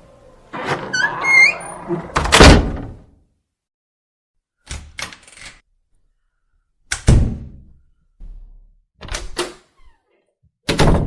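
Doors opening and shutting in a row: a brief squeaky creak, then a loud thud about two seconds in, latch clicks, and several more shutting thuds, the last one loud near the end.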